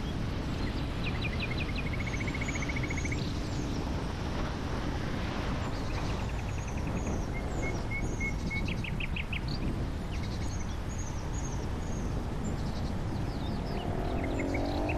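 Songbirds singing, with repeated chirps and short rapid trills scattered through, over the steady low rumble of a car driving on a mountain road.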